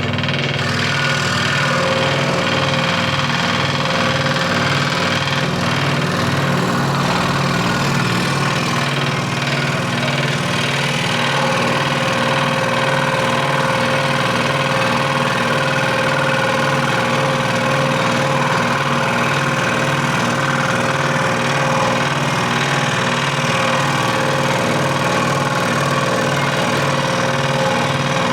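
Scroll saw running steadily, its blade stroking up and down in a fast, even rhythm.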